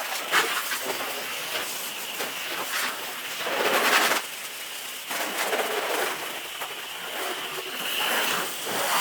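Water from a garden hose spraying onto a car's bodywork to rinse off the soap, a steady hiss that swells louder for about a second before the middle.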